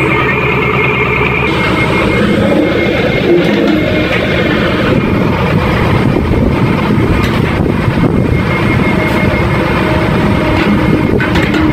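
Hydraulic excavator's diesel engine running loudly and steadily while its boom and bucket are worked.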